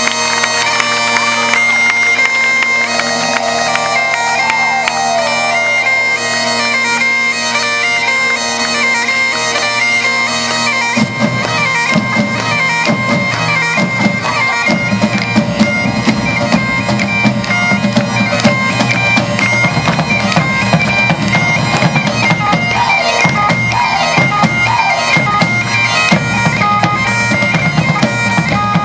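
Bagpipe music: bagpipes playing a melody over a steady drone, with drums joining about eleven seconds in.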